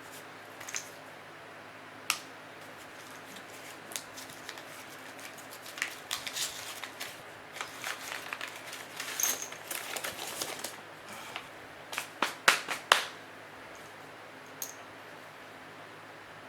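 Scattered sharp metallic clicks and clinks as surplus 7.62x54R rifle cartridges and their packaging are handled, with a cluster of louder clinks about twelve to thirteen seconds in.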